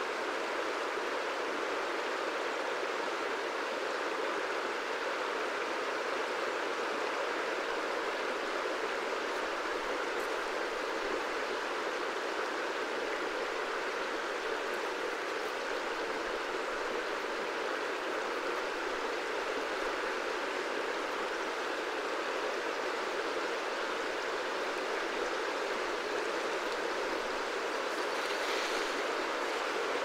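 A wide river flowing: a steady, even rush of moving water with no breaks.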